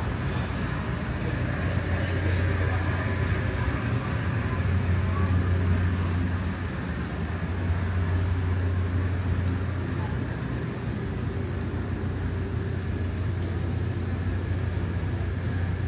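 Steady low mechanical hum aboard a docked ship, with faint voices murmuring in the background.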